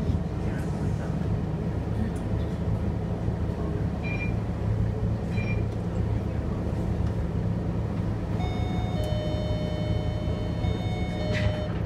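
Scania K230UB bus's five-cylinder diesel engine idling steadily with the bus at a standstill, heard from inside the cabin. Two short high beeps come about four and five and a half seconds in. Near the end a steady electronic tone of several pitches sounds for about three seconds and then stops.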